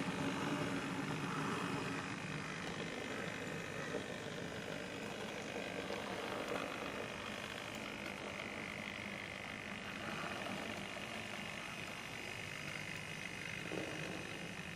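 Model railway locomotive running slowly along the track: a steady small electric motor hum with wheel and rail noise.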